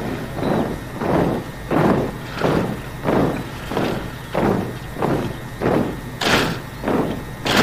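Boots of a silent-drill squad of NYS recruits stamping in unison on a parade ground, with no spoken commands. Heavy, even thuds come about every two-thirds of a second, and a couple of sharper, brighter strikes fall near the end.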